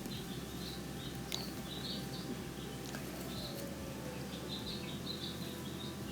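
Faint, scattered high chirps of small birds over a low steady hum, with a couple of light clicks.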